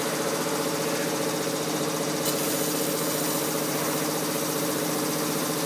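Bodor BCL 1530FBR fiber laser cutting machine running as it cuts square steel tube: a steady hum of several held tones over a constant hiss, with one brief click about two seconds in.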